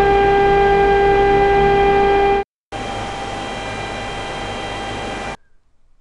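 Industrial centrifugal chopper fan running loudly with a strong steady tone over its rushing airflow. It cuts out about two and a half seconds in, then sounds again about 10 dB quieter with the tone much weaker: the same fan after aerodynamic quiet-fan inserts were fitted in its casing.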